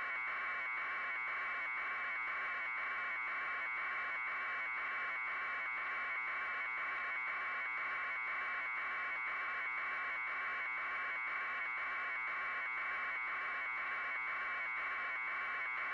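A steady electronic buzzing hiss that pulses evenly about twice a second.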